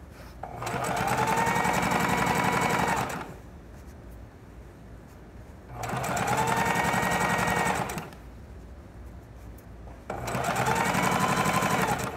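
Electric domestic sewing machine stitching in three short runs of two to three seconds each, stopping between them; the motor's pitch climbs as each run starts. It is sewing a quarter-inch seam around the curved edge of a trouser pocket.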